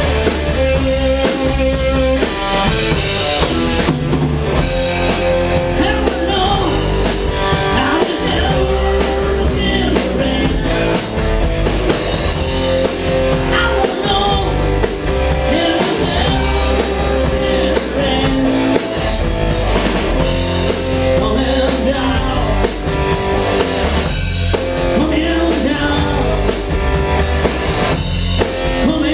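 Rock band playing an instrumental passage: drum kit keeping a steady beat under electric guitar and bass.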